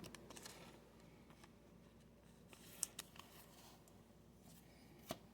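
Near silence, with a few faint clicks of trading cards and packs being handled.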